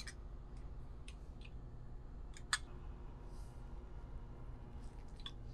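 Scattered light clicks and small metal taps of a ratcheting wrench working fittings on a brass booster pump head, with one sharper click about two and a half seconds in, over a low steady hum.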